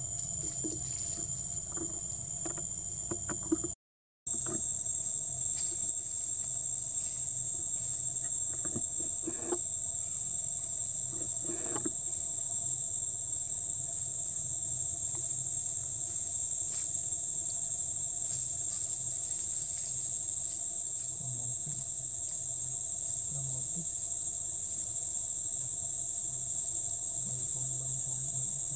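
Steady, high-pitched chorus of insects shrilling without a break; the sound cuts out completely for a moment about four seconds in.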